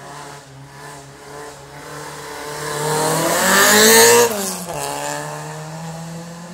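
Škoda hatchback hill-climb race car accelerating up the road past the listener, its engine note climbing and growing loud. About four seconds in it drops sharply in pitch as the car goes by, then fades away up the hill.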